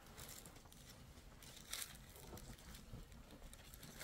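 Near silence: a faint outdoor background with a few light scattered ticks and a soft rustle a little under two seconds in.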